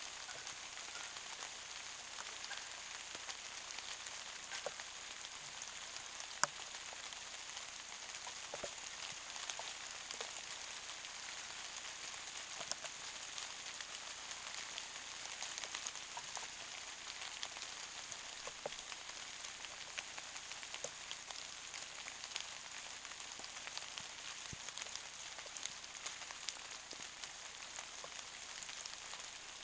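Steady rain falling: a constant hiss dotted with the ticks of single drops.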